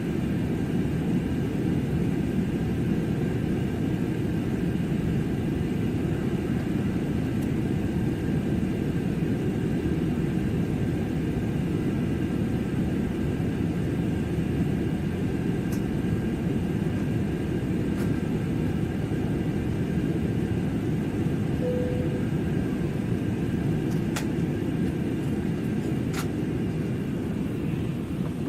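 Steady cabin noise of an airliner in flight: a low, even rumble of engines and airflow, with a faint steady whine above it and a couple of light clicks near the end.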